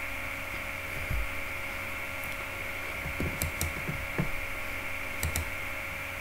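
A few scattered soft clicks and low thumps, some in quick pairs around the middle, over a steady electrical hum and room tone.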